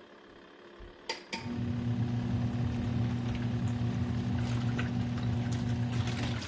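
Two clicks, then the motor of a small portable twin-tub washing machine starts about a second and a half in and runs with a steady hum, stopping just before the end.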